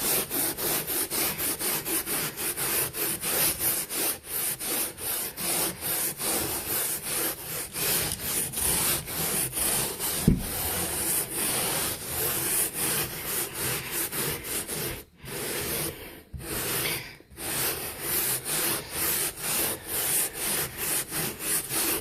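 Carpet foam being scrubbed into stair carpet in quick, even back-and-forth strokes, about three or four a second, pausing briefly twice after the middle. A single short knock about ten seconds in.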